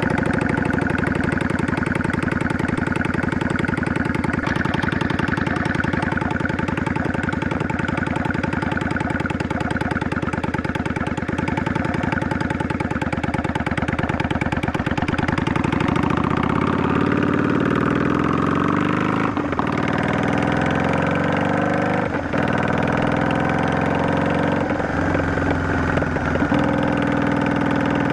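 Yamaha DragStar 400's air-cooled V-twin running through a Garage T&F Vent Muffler Type 2 with inner silencer, while riding. The exhaust note is steady for the first half, then the engine speed rises and falls with a few brief breaks in the sound.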